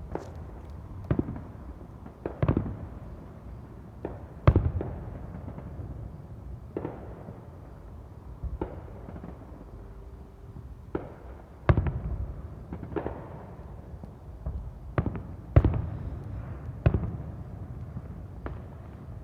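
Fireworks going off: a string of bangs and pops at irregular intervals, each trailing off in a low rumble. The loudest bangs come about four and a half, eleven and a half and fifteen and a half seconds in.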